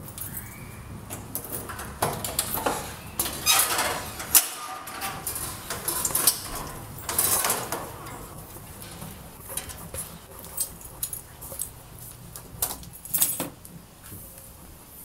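A padlock and key handled at a metal-grilled door, with scattered sharp clicks, rattles and knocks as it is unlocked and opened.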